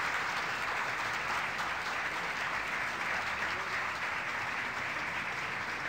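Applause from a crowd: many hands clapping steadily, without a break.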